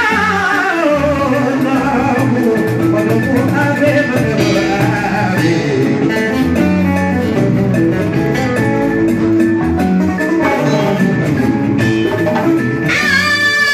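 Music: a voice singing over instruments, with a long falling sung line at the start.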